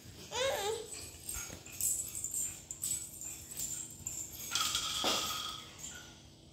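A young child's brief high, wavering squeal, followed by scattered light clicks and rattles, as of toys being handled.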